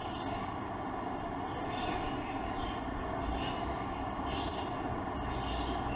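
Steady background noise with a low hum and a faint hiss, no clear single event.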